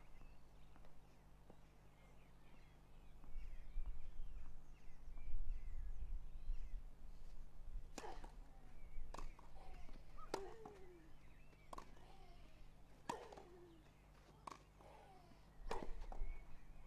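Tennis rally on a grass court. From about halfway through, a racket strikes the ball roughly every second and a half, about eight hits in all, each followed by a short falling grunt from a player. Faint bird chirps come before the point starts.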